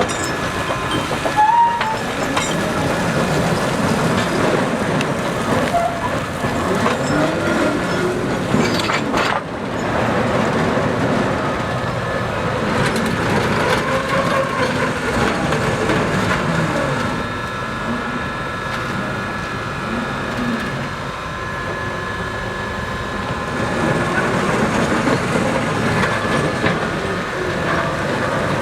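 Train of spoil wagons behind a JS-class 2-8-2 steam locomotive rolling along the track, wheels and couplings clattering, with a thin steady squeal in the second half.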